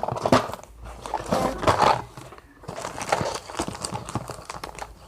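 Irregular clicks and knocks as a small vending machine is handled and operated.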